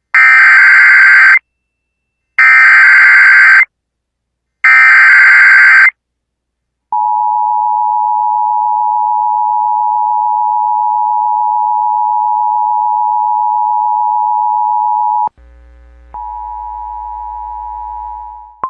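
Emergency Alert System header and attention signal. Three loud bursts of data tones about a second apart come first, then the steady two-tone attention signal is held for about eight seconds. Near the end a quieter steady tone with a low hum under it begins.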